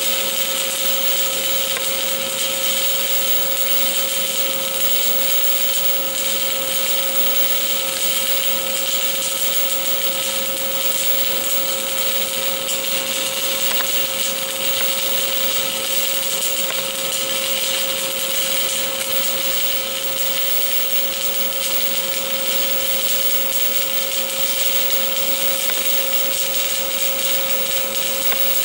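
Stick-welding arc on stainless steel burning continuously as a vertical-up cover pass is laid: a steady crackling hiss without breaks, with a steady whine underneath.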